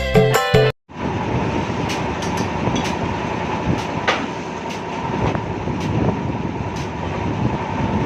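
Diesel engine running with a steady, dense mechanical rumble and scattered sharp clicks, starting just after a short burst of music ends about a second in.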